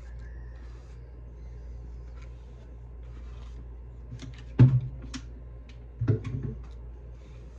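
Hair being brushed out with a hairbrush: light scattered clicks and rustles, with a sharp knock about four and a half seconds in and a softer one about a second and a half later.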